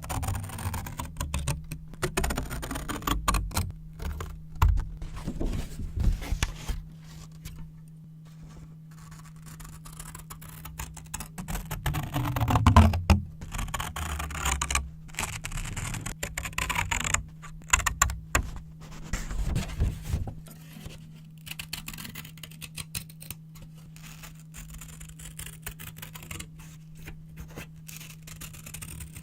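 Brown paper crinkling and rustling close to the microphone, in irregular crackly bouts that thin out near the end.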